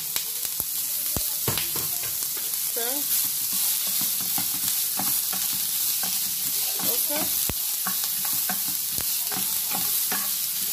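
Diced onions and peppers sizzling in a frying pan, with a steady hiss, while a wooden spatula stirs them, scraping and tapping against the pan in many short clicks.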